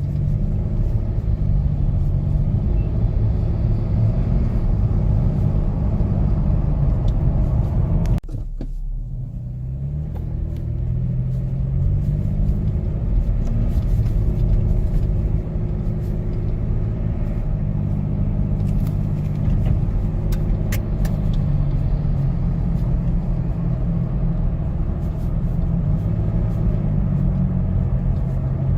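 2007 Nissan Xterra's 4.0-litre V6 running while the vehicle is driven with its automatic transmission. About eight seconds in the sound drops suddenly, then the engine pitch climbs for a few seconds and settles to a steady run.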